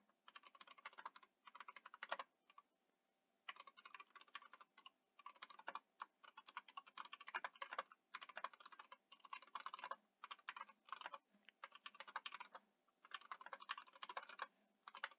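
Faint typing on a computer keyboard: quick runs of keystrokes broken by short pauses, the longest about a second, a couple of seconds in.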